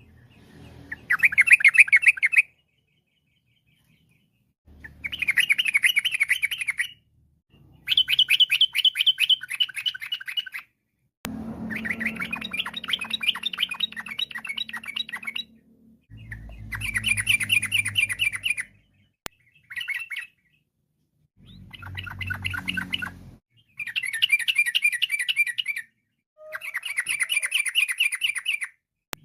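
Yellow-vented bulbul (trucukan) singing: about nine bouts of quick, rolling chattering notes, each a couple of seconds long, with short pauses between.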